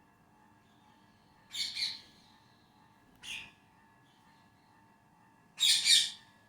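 Parrots squawking: a harsh double call about one and a half seconds in, a short call just after three seconds, and a louder double call near the end.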